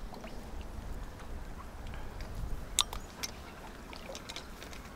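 Low steady rumble with faint water movement at the shore, and a couple of sharp clicks about three seconds in.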